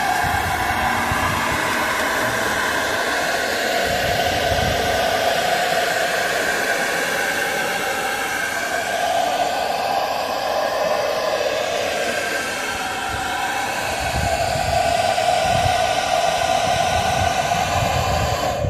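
Handheld hair dryer blowing steadily, a motor whine over rushing air, heating a car window's tint film to loosen it for peeling. Its tone wavers a little.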